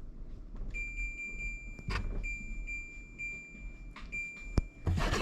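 Electronic beeper giving one high steady tone in several long stretches with short gaps, and a couple of sharp clicks among them.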